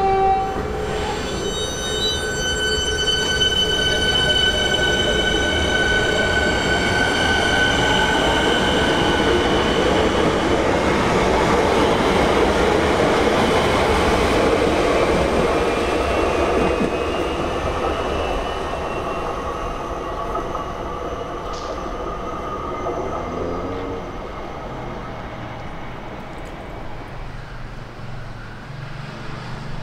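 Siemens Nexas electric multiple unit running past along the platform: a loud rumble of wheels on the rails with steady high-pitched whining tones over the first ten seconds or so. The sound peaks midway and then fades as the train moves away.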